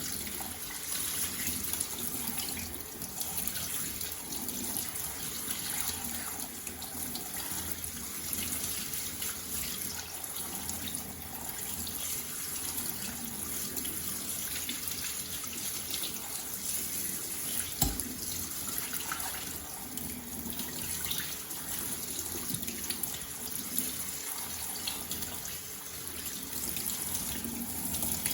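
Kitchen tap running steadily into a sink as soaked oats are rinsed, with one sharp knock about eighteen seconds in.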